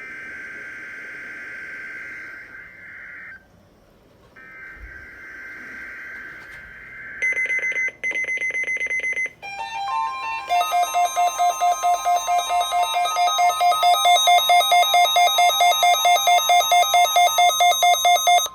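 Emergency Alert System digital header: two bursts of warbling data tones, about three seconds each, a second apart. Then rapid electronic pulsing gives way to a loud alert tone, a steady tone near 1 kHz under beeps pulsing about four times a second, which cuts off abruptly near the end.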